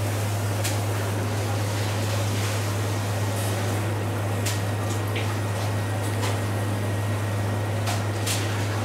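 A steady low hum under an even hiss, with a few sharp crackles scattered through it: a basted sea eel fillet sizzling on skewers over a red-hot grill.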